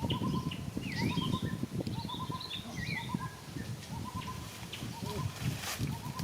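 Birds calling: short clustered notes repeated about once a second, with a few dipping whistled notes above them, over steady low rustling and handling noise.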